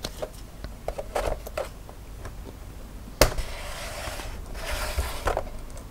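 Plastic snap-fit clips of an ASUS R103BA netbook's case clicking as the top cover is worked loose from the bottom shell. One sharp snap comes about three seconds in, followed by plastic rubbing.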